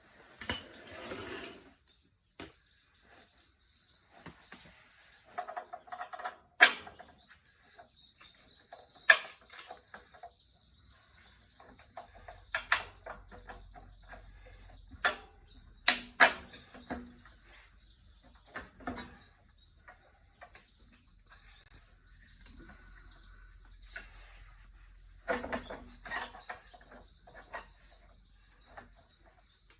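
Scattered sharp metal clinks and knocks of hand tools and parts while an engine is being lined up and bolted onto a rototiller frame, with a faint steady high-pitched tone behind.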